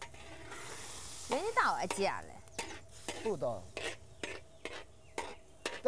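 Tofu and broth simmering and sizzling in a large wok for about the first second, then cooking utensils clacking about ten times against the wok and dishes while the food is stirred.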